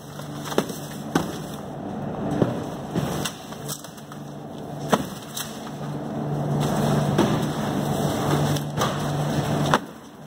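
Heavy cardboard cases of canned jack mackerel being handled and set down on a stack and on metal wire racks, with a few sharp knocks at irregular moments. Underneath is a steady factory machinery hum.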